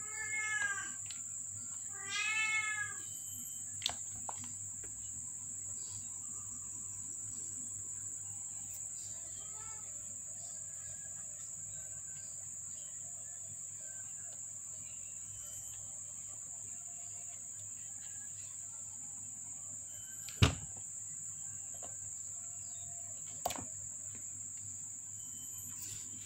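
Young kittens meowing, two short high calls in the first three seconds. After that a steady high-pitched drone over a low hum, broken by a few sharp knocks, the loudest about twenty seconds in.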